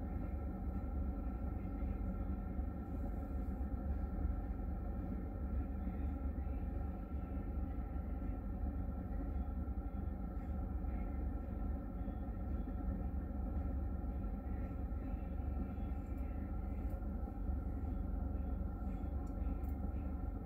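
A car's engine idling, heard from inside the cabin: a steady low rumble with a faint steady hum above it.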